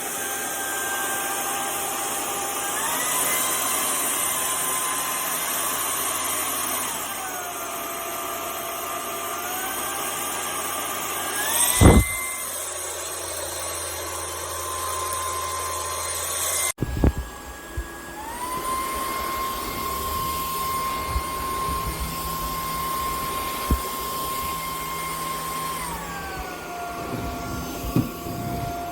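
GOLDEGGS 550 W cordless vacuum cleaner running, its motor whine stepping up and down in pitch several times, with a sharp knock about twelve seconds in.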